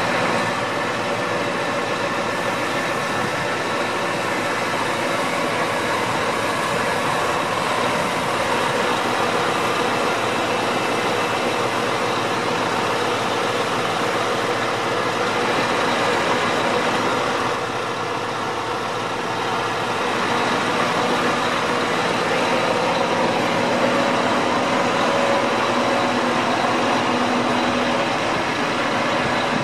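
Diesel engine of a crane lorry running steadily to power its truck-mounted hydraulic crane as it holds and swings a load. The engine note eases off briefly about eighteen seconds in, then picks up again.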